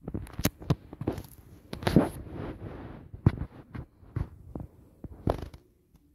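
A knife knocking and scraping against a round metal cake tray while cutting a chocolate cake into squares: an irregular string of sharp clicks and knocks, with a longer scrape about two seconds in, stopping shortly before the end.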